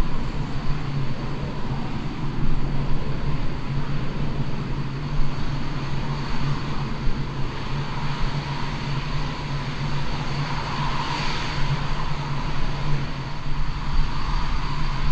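Dassault Mirage 2000 fighter jets' single turbofan engines (SNECMA M53) running at low power on the ground: a steady jet whine with a low hum underneath and a thin high whistle, swelling briefly about two-thirds of the way through.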